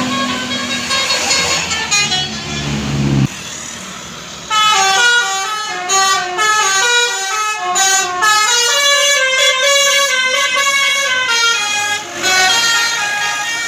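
Basuri 'telolet' multi-tone bus horn playing a quick melody of short stepped notes, starting about four and a half seconds in and running phrase after phrase, with a brief break near the end. Before it, a noisy stretch of traffic sound cuts off suddenly about three seconds in.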